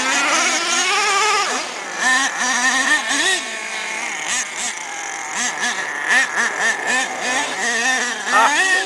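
Small nitro engines of radio-controlled monster trucks racing, revving up and down with a high buzz. One engine's pitch climbs steeply over the first second and a half, then several engines keep surging and easing off.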